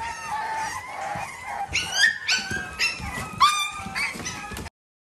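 Bully-breed puppies whining and yelping. A drawn-out whine comes first, then a run of short, high yelps that drop in pitch. The sound cuts off suddenly near the end.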